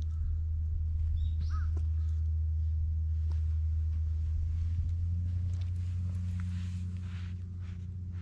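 Footsteps scuffing on a paved country road over a steady low rumble, with a single short bird call about a second and a half in.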